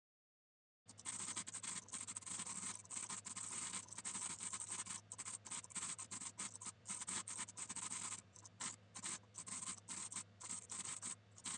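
Computer keyboard typing, sped up into a fast, dense clatter of keystrokes that starts about a second in.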